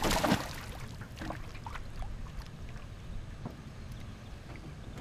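Hooked largemouth bass thrashing and splashing at the water's surface beside the boat, loudest in the first half second, followed by a low wash of water with a few small splashes and knocks.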